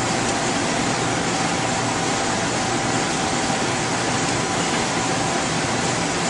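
Steady hiss of running machinery and ventilation, with a faint steady whine above it.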